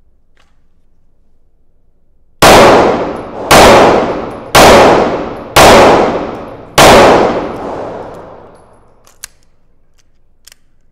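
Five handgun shots, about a second apart, each ringing off the concrete walls of an indoor range with a long echoing tail. Two faint clicks follow near the end.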